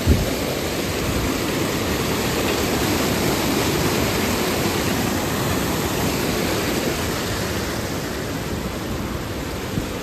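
Steady rushing of water, like a mountain stream, with a single thump right at the start.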